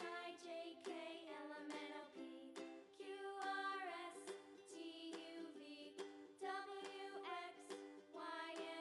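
Quiet background music, a light melodic tune.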